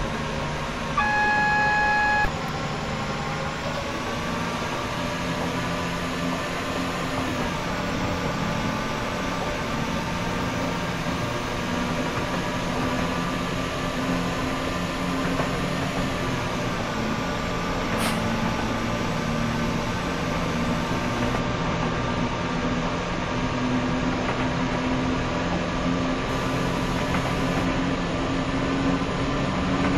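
Running noise of a Class 172 diesel multiple unit heard from inside: a steady diesel rumble and hum, with a whine that glides in pitch now and then. About a second in, a steady beep sounds for just over a second, and a single sharp click comes a little after halfway.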